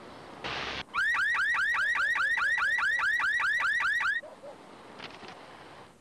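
Car alarm going off, a rapid rising whoop repeated about five times a second for roughly three seconds before cutting off suddenly, set off by amateur wiring of a car stereo. A short burst of noise comes just before it starts.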